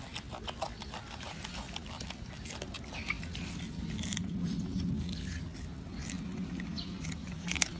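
Golden snub-nosed monkey chewing a piece of raw carrot close up: a run of small, crisp crunches and clicks.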